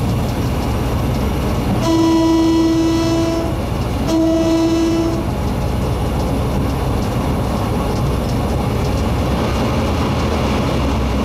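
A locomotive sounds two blasts, a longer one about two seconds in and a shorter one just after, each one steady tone, over the steady rumble of the moving train.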